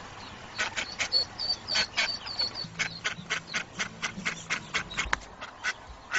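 A hen duck quacking loudly and insistently in a quick run of short quacks, about three to four a second, calling for her ducklings stuck in a storm drain. Thin high peeps from the ducklings come through in the first half.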